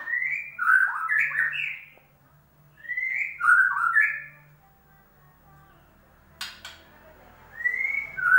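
White-rumped shama song played as a lure to set a silent shama singing: three loud phrases of quick curved whistled notes, each about a second and a half long, with a sharp click between the second and third phrase and a faint low hum underneath.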